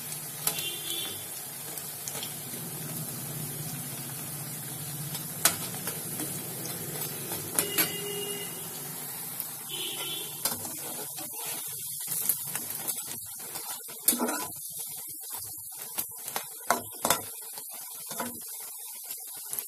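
Sabudana pakoras deep-frying in a kadai of oil, a steady sizzle, with a metal slotted spatula clicking and scraping against the pan as the fritters are turned, the clicks coming more often in the second half.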